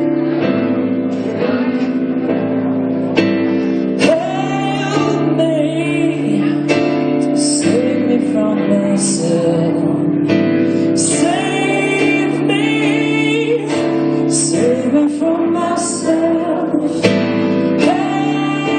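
Live acoustic band performance: a strummed acoustic guitar with a voice singing the melody over it.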